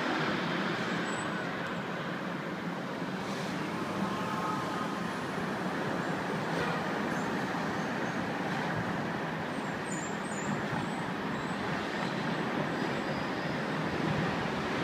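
Steady city road traffic: a constant rush of passing vehicles, with a couple of faint high chirps about ten seconds in.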